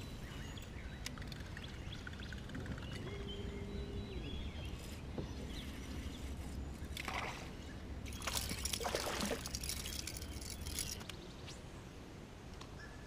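Water splashing and sloshing beside a bass boat over a low steady rumble. A run of louder splashes comes from about seven to eleven seconds in.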